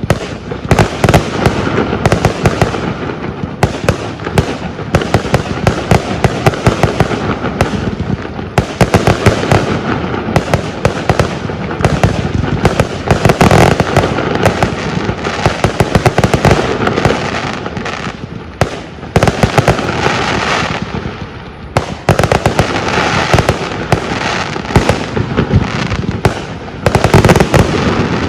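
Aerial fireworks display: shells bursting in rapid, overlapping bangs with no letup, thinning briefly about three-quarters of the way through, then dense again near the end.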